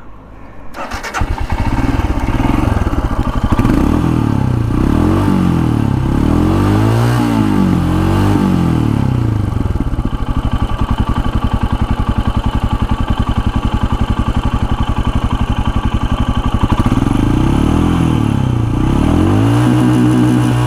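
Royal Enfield Himalayan Scram 411's single-cylinder engine running at the exhaust silencer, the throttle blipped several times so the revs rise and fall, with a longer rev held near the end.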